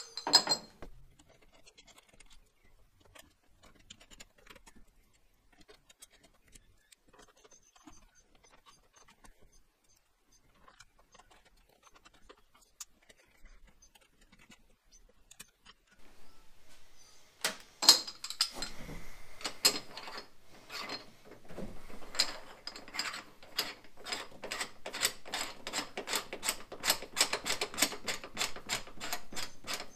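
Small metal parts being handled and turned by hand on top of a Radium fuel cell: a sharp click at the start, then quiet faint clicks. From a little past halfway comes a fast, even run of sharp clicks, several a second, like a ratcheting mechanism as a fitting is turned.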